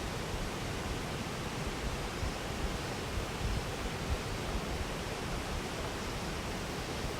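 Waterfall rushing: a steady, even roar of falling water with an irregular low rumble underneath.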